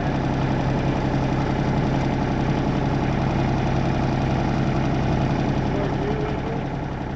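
Takeuchi mini excavator's diesel engine running steadily at a low idle, close by.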